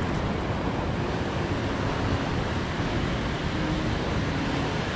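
Ocean surf washing onto a sandy beach, a steady rushing noise, with wind rumbling on the microphone.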